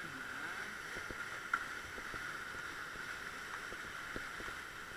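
Steady rush of white water from a river rapid heard from a raft, with wind on the microphone. Faint voices come through near the start, and there is a single sharp knock about one and a half seconds in.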